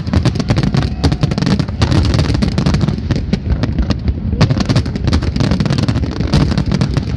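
Aerial fireworks going off in a rapid, unbroken barrage of many sharp bangs and crackles over a steady low rumble of deeper booms.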